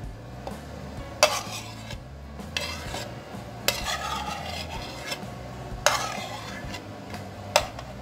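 Metal spoon knocking and scraping against a plastic bowl as boiled red chillies slide off into a plastic blender jar. There are four sharp knocks, roughly two seconds apart, with softer scraping between them.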